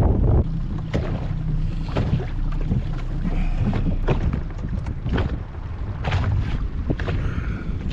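Wind buffeting the microphone as a continuous low rumble, with scattered short knocks and slaps.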